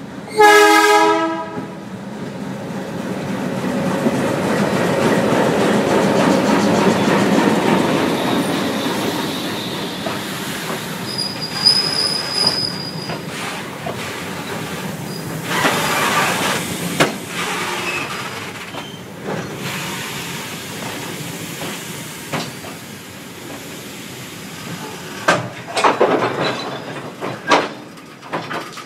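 WDM2 diesel locomotive sounding one short horn blast as it comes close, then its ALCO diesel engine running as it passes. A rake of BOBYN hopper wagons follows, wheels clattering over the rail joints with a brief high wheel squeal.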